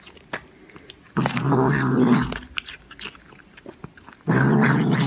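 A cat growling twice while chewing a piece of crunchy green vegetable, with sharp crunching clicks from its bites in between.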